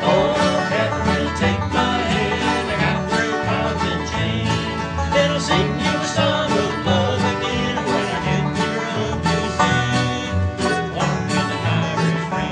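Instrumental music: a quick plucked-string folk tune with a steady bass line.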